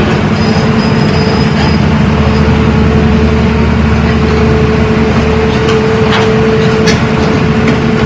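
Hyundai crawler excavator travelling on its tracks, its diesel engine running with a steady drone. A few sharp clanks from the tracks come in the second half.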